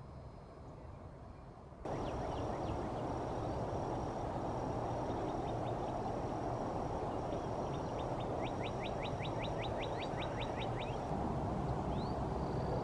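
Outdoor ambience: a steady rushing noise with birds calling over it. The birds give a repeated short high note and, past the middle, a fast run of about a dozen rising chirps. The sound jumps up abruptly about two seconds in.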